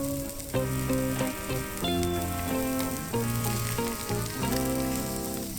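Small stuffed squid sizzling as it grills over hot coals, with a steady hiss. A melody plays over it.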